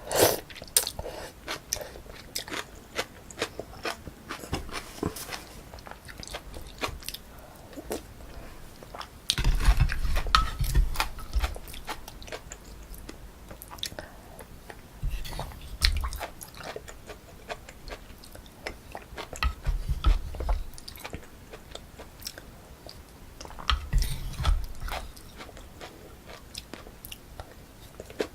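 Close-miked chewing and biting of pork kimchi stew with rice, wet crunches and mouth clicks, with louder bouts of chewing every few seconds.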